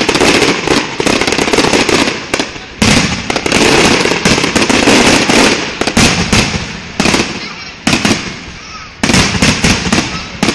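Aerial fireworks bursting in quick succession: loud bangs and crackling, several a second, broken by brief lulls before the next volley.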